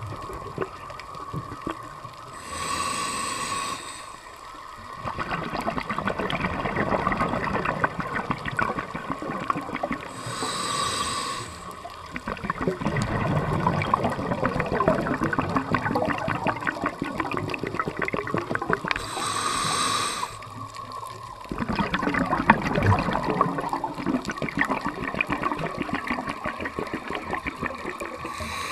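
Scuba diver breathing through a regulator underwater: a hissing inhale with a faint whistle comes every eight or nine seconds, three times and once more at the end, each followed by several seconds of crackling, gurgling exhaled bubbles.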